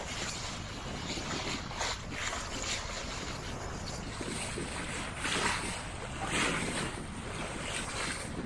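Bow wave of a COCO 6.50 sailboat: water rushing and splashing against the hull as the bow cuts through the chop, with louder splashes a little past the middle, over wind buffeting the microphone.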